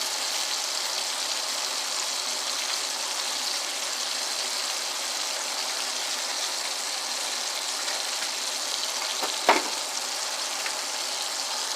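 Steady hissing sizzle of oil frying, from floured ribs in the pan. A single sharp knock sounds about nine and a half seconds in.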